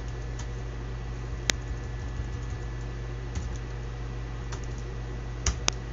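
A few scattered computer keyboard keystrokes, one louder about a second and a half in and two in quick succession near the end, over a steady low hum.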